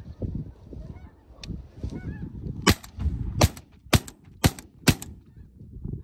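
A flock of snow geese calling overhead, broken by five quick shotgun shots starting a little under three seconds in, each about half a second apart.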